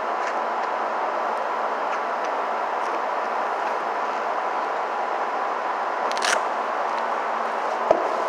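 Steady mechanical drone with a faint hum, with a short hiss about six seconds in and a sharp click near the end.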